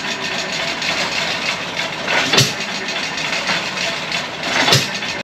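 Old stationary engine running, with a sharp firing stroke about every two and a half seconds, three in all, over a steady mechanical background.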